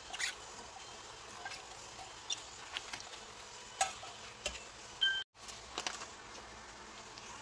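Scattered light clicks, taps and rustles of vegetables being dropped and handled in a metal pot, with a brief break in the sound about five seconds in.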